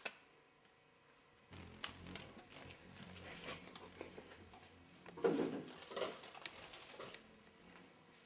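A cat scuffling against slatted window blinds: irregular light tapping, rustling and clicking, with a louder knock about five seconds in.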